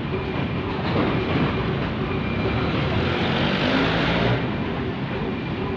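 Heavy diesel engines of a rough terrain crane and a truck running steadily. A hiss swells about three seconds in and stops after about a second and a half.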